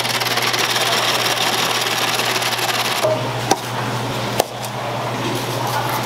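Electric ice shaver running, its motor humming steadily as it grinds ice into fine flakes. A little after halfway the sound drops slightly, and two sharp clicks follow about a second apart.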